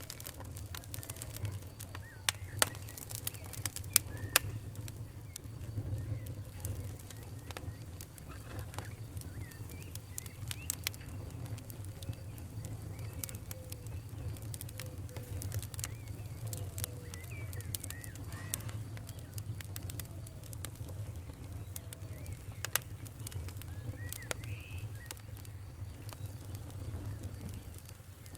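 Wood fire crackling, with irregular sharp pops and snaps over a steady low rumble of the flames. Faint short chirps or whistles come through now and then.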